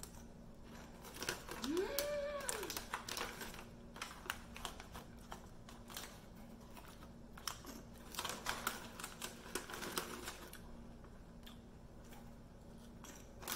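Potato chips being crunched while chewed, with crinkling of the foil chip bag: irregular clusters of sharp crackles with pauses between them.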